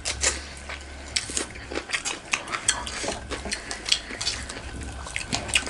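Close-up eating sounds: many short wet clicks of chewing and lip smacks, mixed with fingers scraping and tapping food against metal plates as fish curry and dhindo are eaten by hand.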